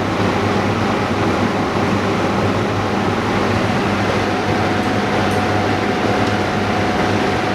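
Steady machine running noise with a low hum and a faint high tone held throughout, from screen-refurbishing equipment.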